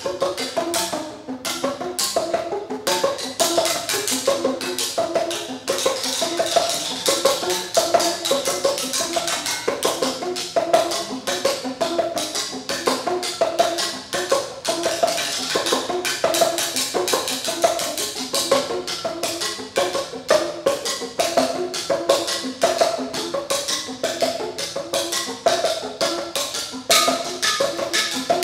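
A percussion trio playing custom hand-thrown ceramic instruments, ceramic tubes and cup-shaped pots, struck with paddles and beaters. The strokes come thick and fast as interlocking pitched notes repeating in a steady pattern.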